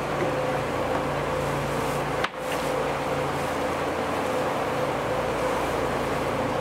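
Tour boat's engine running steadily under way, a constant drone with a steady hum. The sound drops out for an instant a little past two seconds in.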